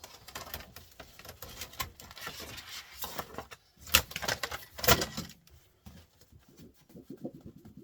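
Small parts from a dismantled flat-screen TV clicking and clattering as they are handled and dropped, with two louder knocks about four and five seconds in.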